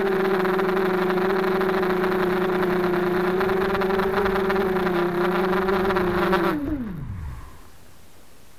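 Racing quadcopter's four small brushless motors (RCX H1806 2400kv with Gemfan 5x3 props) heard up close, running in a steady whine at low throttle; about six and a half seconds in they spool down in a quickly falling whine and stop, as the motors are cut.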